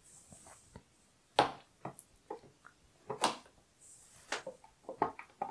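Glass nail polish bottles clicking and knocking against each other and on a clear acrylic organizer shelf as they are set down and pushed along the row. About eight sharp taps, the loudest about a second and a half in, with a soft sliding sound between some of them.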